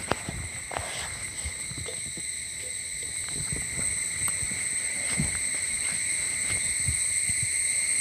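A continuous high insect trill, one unbroken tone that gets gradually louder, with a few soft knocks underneath.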